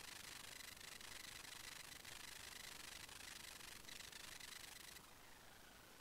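Near silence: a faint, steady hiss that drops a little about five seconds in.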